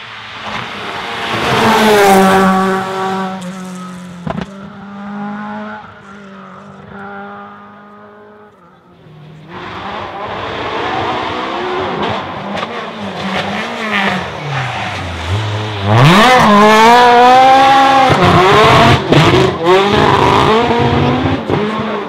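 A rally car's engine at full throttle as it passes close by, its note dropping as it goes away, with a single sharp crack a few seconds in. After that, another rally car: its engine comes down low as it slows for a corner, then revs climb steeply and loudly under hard acceleration, with quick rises and falls in pitch.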